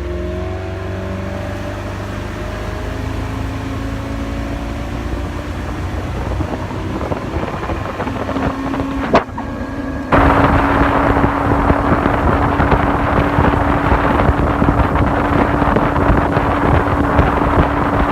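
Boat motor accelerating away, its pitch rising over the first several seconds. About ten seconds in, a loud rush of wind and water at speed takes over, with the motor's steady tone running under it.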